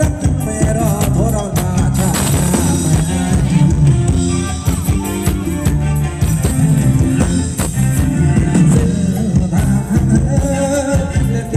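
Live band playing upbeat Thai ramwong dance music, with a steady drum beat, a bass line and a voice singing over it.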